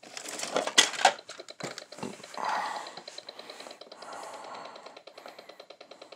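Cardboard toy box and the plastic toys around it knocking and rustling as they are handled, loudest in the first two seconds. From about five seconds in, the boxed VTech Drill & Learn Toolbox's electronics start a rapid, even electronic pulsing, several beats a second, as the toy sets itself off without being switched on.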